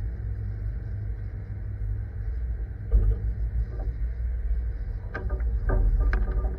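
Truck engine running with a steady low rumble, a single thump about three seconds in. Near the end the truck starts to roll, and its steel box with wooden stake sides rattles and clanks over the rough ground.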